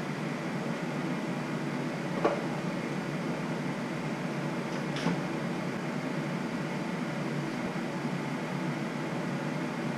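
Steady fan-like hum of workshop ventilation, with two short knocks about two and five seconds in, like things being set down or a drawer at the tool chest.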